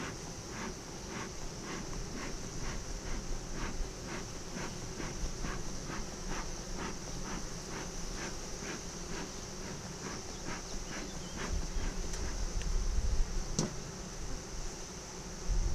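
Bellows of a bee smoker pumped in a steady run of short puffs, about two a second, stopping about eleven seconds in. Bees hum from the open hive, and wind buffets the microphone near the end.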